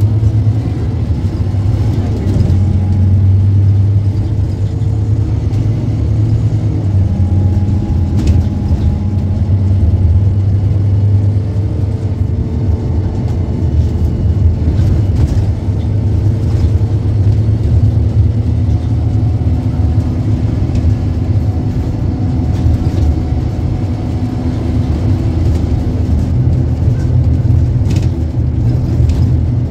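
Scania K230UB city bus's diesel engine running under way, a steady low drone whose pitch rises and falls in steps as the bus speeds up and slows, with a few short rattles.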